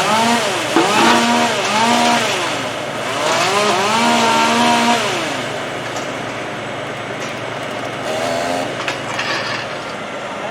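Chainsaw engine revving up and dropping back several times in the first five seconds, with one more short rev about eight seconds in, over a steady low engine hum.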